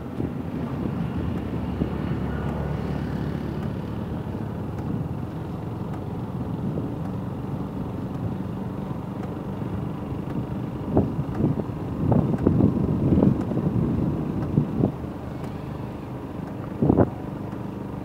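Steady low rumble of road traffic in a busy street, with a cluster of short thumps about two-thirds of the way in and one more near the end.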